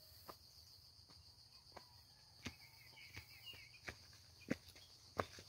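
Footsteps in sandals on a rocky dirt path, about one step every two-thirds of a second, growing louder as the walker comes close; the loudest step falls near the end. A steady drone of crickets sounds behind them.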